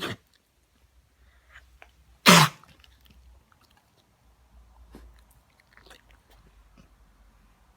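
English bull terrier giving sharp, sneeze- or cough-like bursts: a short one at the start and a much louder one about two seconds in, followed by a few faint smaller sounds. The owner wonders whether this is a cough and a sign of a health problem.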